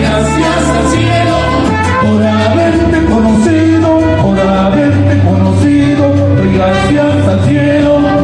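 Mariachi band playing at a steady, loud level, its low bass notes stepping from one held note to the next under the melody.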